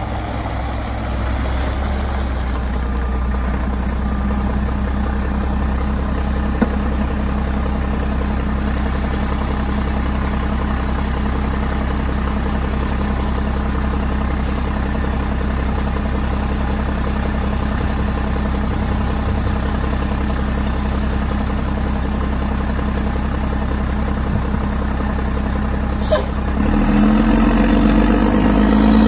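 Mack LE garbage truck's diesel engine idling steadily, then revving up near the end as the worker at the rear controls engages the Leach rear-loader packer.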